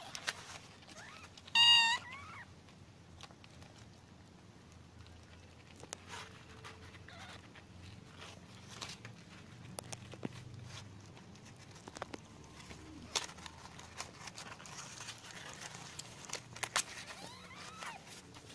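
A cat gives one short, high mew about two seconds in, the loudest sound here, with a fainter call near the end. Between them come faint scattered clicks and rustles.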